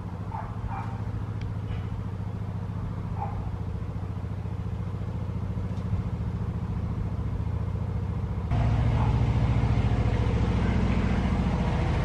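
Narrowboat's diesel engine running at a steady low chug, growing louder as the boat approaches and louder again about two-thirds of the way through as it draws alongside.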